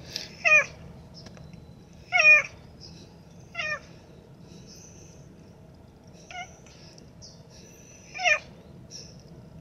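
Tabby cat giving five short meows, the loudest about two seconds in and near the end.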